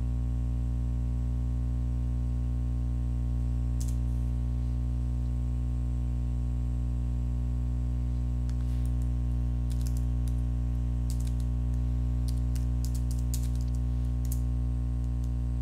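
Computer keyboard typing: one keystroke about four seconds in, then a quick run of keystrokes through the second half, over a steady low electrical hum.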